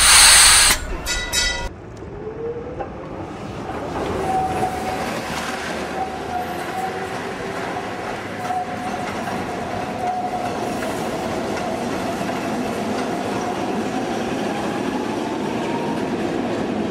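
Tram sound effect: a loud hiss and clatter in the first couple of seconds, then the tram running along the rails, with a rising whine as it gets under way and a long, thin wheel squeal.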